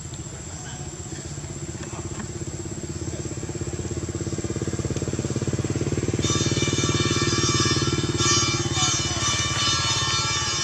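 A small engine running with a steady pulsing drone, growing louder over several seconds as it draws nearer, under a thin high insect whine. From about six seconds in, music with held tones joins.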